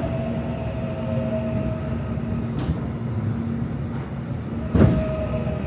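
Old-model Seoul Subway Line 3 train running, heard from inside the car: steady rumble with a constant motor whine, and a single sharp clunk about five seconds in.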